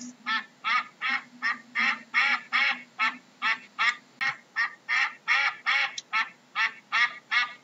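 Duck quacking in a fast, even series of short calls, about three a second.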